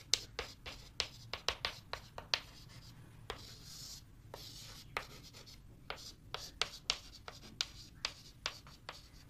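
Chalk writing on a blackboard: a quick run of sharp taps and short scratches as letters are written, with a longer scrape about three seconds in.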